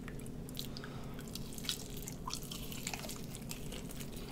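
Two people biting into and chewing sauced chicken wings: scattered wet smacks and small crisp clicks.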